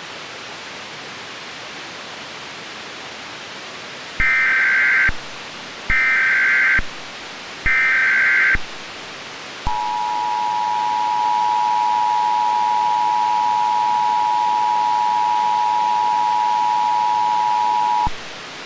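Emergency Alert System tones over a steady hiss. Three short warbling bursts of SAME header data, each about a second long, are followed by the two-tone attention signal (853 and 960 Hz), held steady for about eight seconds before it cuts off.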